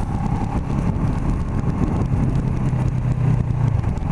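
Kawasaki Ninja 650R's parallel-twin engine running steadily under way, with wind rumbling over the rider's microphone; the engine note grows a little stronger near the end.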